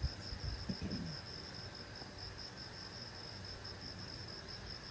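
Crickets chirping: a steady, high-pitched pulsing, about five chirps a second.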